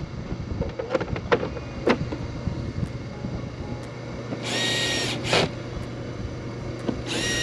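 Cordless drill driving screws in two short whirring bursts, about four and a half and seven seconds in, with clicks and knocks of parts being handled before them. A steady low hum runs underneath.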